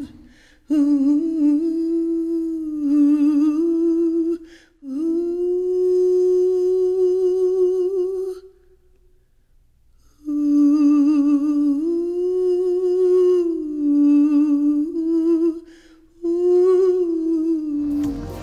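A woman humming a slow melody with vibrato, in four drawn-out phrases with short breaths between and a pause of about two seconds in the middle. Music with a beat cuts in just at the end.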